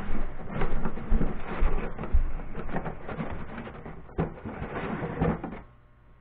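Rustling and light knocking of packaging as items are handled and lifted out of a foam-lined cardboard box, with a few dull bumps; it dies away about five and a half seconds in.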